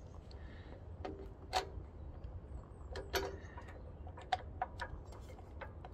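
Scattered light clicks and knocks, about ten in all, of a plastic air filter housing being handled and pressed back onto a small four-stroke engine's carburettor.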